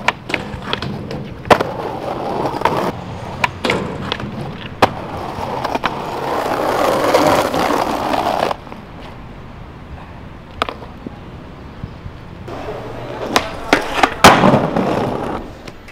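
Skateboard wheels rolling on rough pavement, with repeated sharp pops and clacks of the board against the ground from trick attempts. Near the end comes a loud impact and a grind along a metal handrail.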